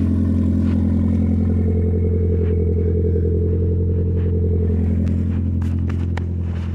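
Audi TT's 1.8-litre turbocharged four-cylinder engine idling steadily, warming up after a cold start. A few short sharp clicks come about five to six seconds in.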